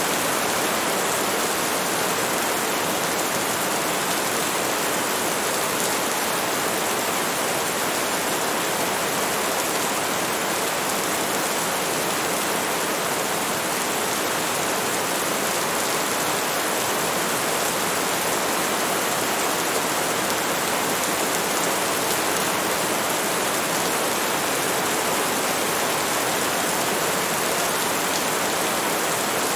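Steady rainstorm: an even, unbroken hiss of rain that keeps the same level throughout, with no separate drops, thunder or gusts standing out.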